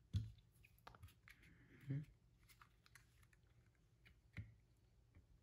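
A handful of faint clicks and taps of plastic Rubik's-cube pieces and a superglue bottle being handled, a second or two apart.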